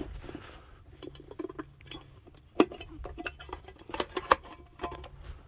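Irregular light clicks and taps, with a few louder knocks about two and a half seconds and four seconds in, from mineral supplement being loaded into a feed mixer wagon.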